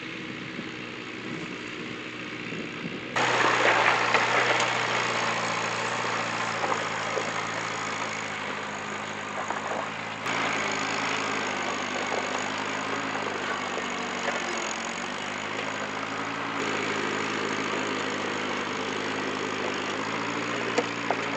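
1952 Massey-Harris Pony tractor's small four-cylinder Continental flathead engine running steadily while pulling a moldboard plow through sod, with a rushing hiss over it that gets louder about three seconds in.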